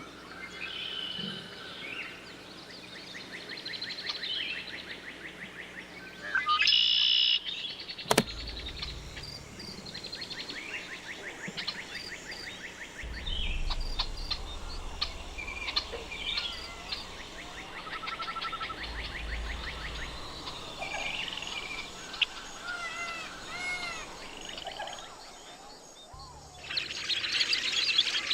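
Common blackbird and other songbirds singing and calling, a busy mix of rapid trills, short chirps and arching notes, with a sharp click about eight seconds in and low wind rumble through the middle.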